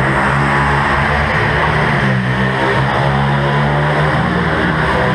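Several 125cc pitbike engines running hard on a track, a dense steady buzz with overlapping engine notes that rise and fall as the riders accelerate and back off.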